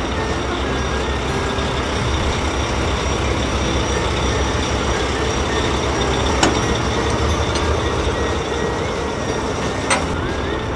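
Heavy truck engine sound effect running steadily, with two sharp knocks, the first about six seconds in and the second near the end.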